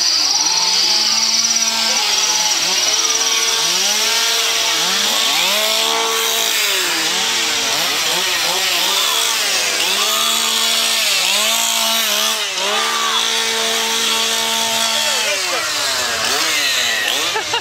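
Chainsaw engine revved over and over: its pitch climbs, holds at high revs for a second or two, then drops back, again and again.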